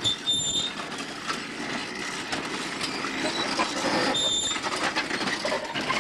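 Small homemade 18-inch gauge open trolley car rolling past on its track, its wheels clattering with many small clicks over the rails.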